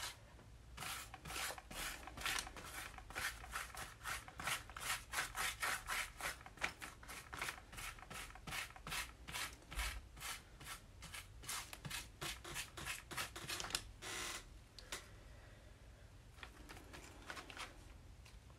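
Paintbrush spreading a glue-and-glitter mix over paper: quick scratchy back-and-forth strokes, about four a second, that stop about fourteen seconds in, followed by a few fainter strokes near the end.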